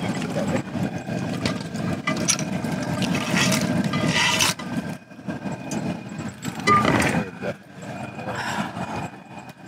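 Propane burner running steadily under a crawfish boil pot, with a rush of clattering and splashing about three to four seconds in as live crawfish are poured from a pot into the hot water.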